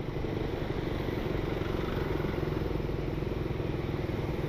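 Motorcycle engine running at a steady pace while riding, heard from on the bike, with a steady rush of road and wind noise.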